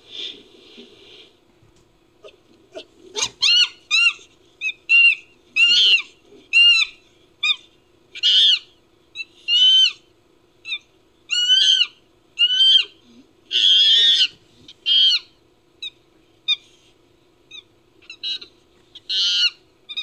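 Chimpanzee sound effect built from chimpanzee recordings: a long series of short, high-pitched screeching calls, each rising and falling in pitch, coming about one or two a second after a quiet first couple of seconds, with a few harsher screams in the middle. A faint steady hum runs underneath.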